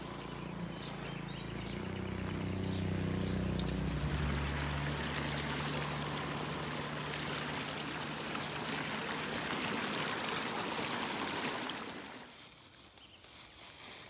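A steady rushing, hissing noise that fades away about twelve seconds in. Under it for the first four seconds runs a low drone made of several steady tones.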